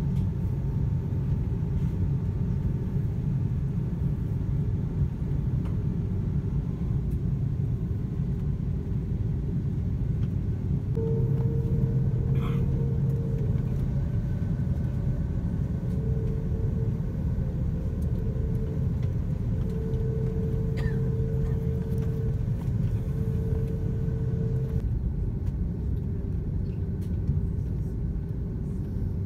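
Rolls-Royce Trent 700 turbofan engines of an Airbus A330-300 at taxi power, heard inside the cabin: a steady low rumble, with a whine that comes and goes in several stretches from about a third of the way in until a few seconds before the end.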